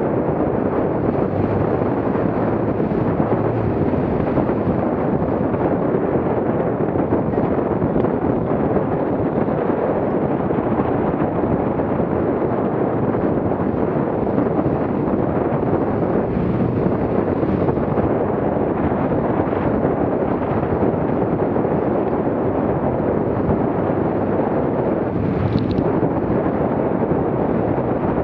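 Steady, heavy wind noise buffeting the microphone aboard a small motorboat running through choppy water, mixed with the rush of water along the hull.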